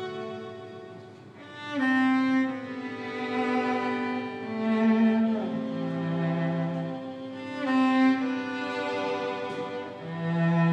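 Live chamber music for violin, viola, cello and piano. The strings hold long bowed notes that swell in loudness about two seconds in and again near the end.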